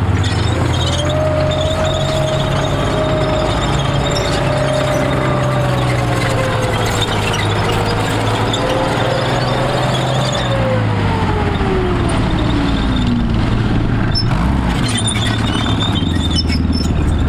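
Heavy military vehicle running, with a squeal that holds steady for several seconds and then falls in pitch about two-thirds of the way through, over a low engine hum.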